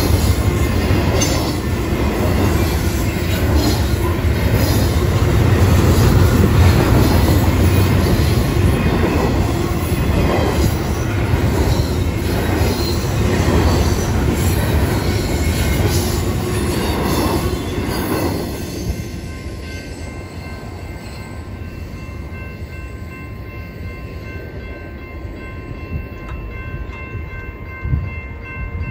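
Double-stack intermodal freight train of well cars rolling past a grade crossing: wheels rumbling and clattering over the rail joints with some wheel squeal, until the last car passes about 18 seconds in and the noise falls away. Afterwards the crossing's warning bell rings on in steady tones.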